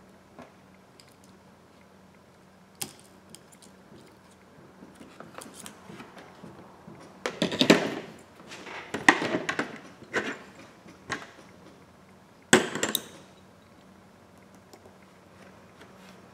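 Phone parts and a small screwdriver being handled and set down on a work mat during an iPhone repair: a few light clicks, then a cluster of clattering knocks in the middle and one sharp knock near the end, over a faint steady hum.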